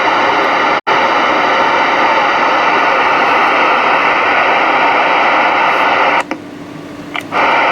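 Stryker SR-955HPC CB radio hissing static through its speaker on an empty channel. The static cuts out for an instant about a second in, and drops to a quieter hum for about a second near the end.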